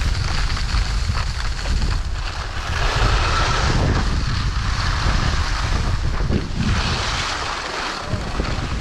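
Wind buffeting the camera microphone while skiing downhill, with skis scraping over hard, icy groomed snow; the scraping hiss swells about three seconds in and again near seven seconds.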